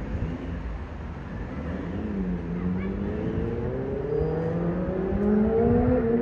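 Boeing 777-300ER's twin GE90-115B turbofan engines passing overhead: a steady jet rumble that grows louder, with tones gliding upward in pitch over the last few seconds.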